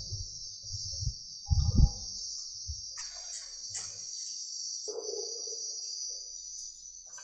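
A steady, high-pitched chirring hiss in the background, with a few dull low thumps about a second and a half in.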